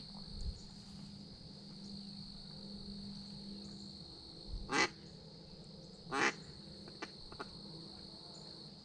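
Two loud, short duck quacks about a second and a half apart, over a steady drone of crickets.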